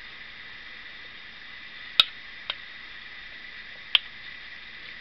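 Spoon clinking against a dish of cream stew during eating: two sharp clicks about two and four seconds in, with a fainter one just after the first, over a steady hiss.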